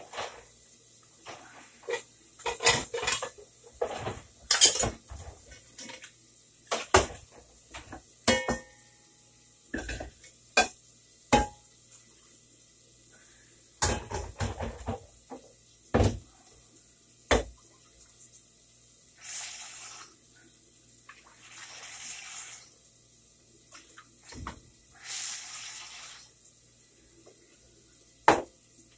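Kitchen clatter of pots, pans and utensils being handled: a string of sharp clanks and knocks, one ringing briefly like metal, then three short rushing noises in the second half and one more clank near the end.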